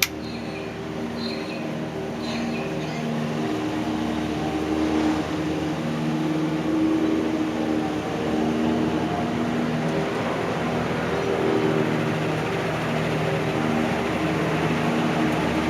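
GEC Royal Bianca 1400 mm ceiling fan starting from standstill on high speed. Its motor hum grows louder over the first several seconds, then runs steadily at full speed with a hum that swells and fades in a slow rhythm.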